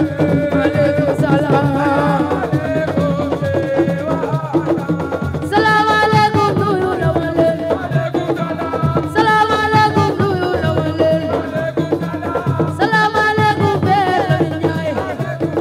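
Music with a melodic, sung-like line over drums and percussion, the melody phrases restarting every few seconds.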